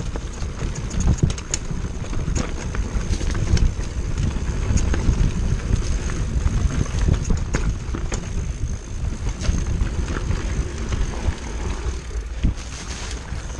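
Orbea Laufey hardtail mountain bike riding down rocky dirt singletrack, heard from a handlebar-mounted camera. Wind buffets the microphone with a steady low rumble, and frequent sharp clicks and knocks come from the bike rattling over rocks.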